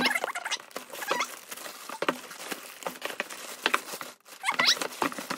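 Plastic mailer bag crinkling and rustling in rapid, irregular crackles as it is pulled open by hand, louder about four and a half seconds in.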